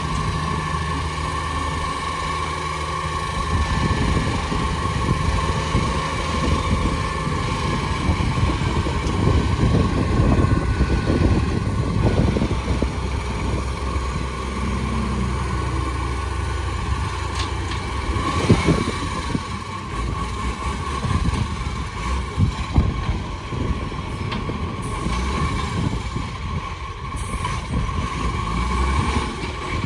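Iveco Acco side-loader rubbish truck idling at the kerb, its diesel engine revved to drive the hydraulic packer as it packs out (compacts) its load. The revs rise a few seconds in and hold, with a steady high whine over the engine.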